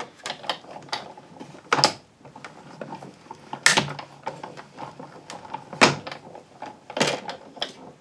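Clear acrylic cutting plates and a magnetic platform clacking as a die-cutting sandwich is handled and cranked through a Sizzix Big Shot die-cutting machine, with four sharp knocks among lighter clicks.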